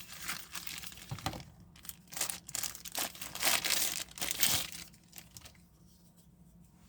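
Crinkling and rustling of something being handled, irregular and dense for about five seconds before dying down.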